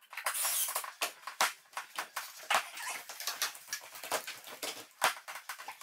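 A quick, irregular run of clicks, knocks and scraping hiss from hand work on ladders while fitting a wooden ceiling beam.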